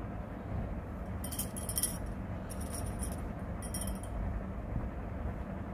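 Bangles jingling in three short bursts as the hand moves, over a steady low background hum.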